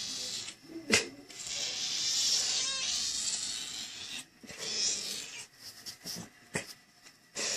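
A domestic cat making small sounds over a steady high hiss, with a sharp click about a second in and a few softer clicks near the end.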